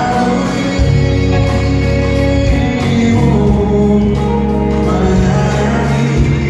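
Live pop band performance: a male lead singer over sustained bass and keyboard or guitar chords, in a large reverberant hall.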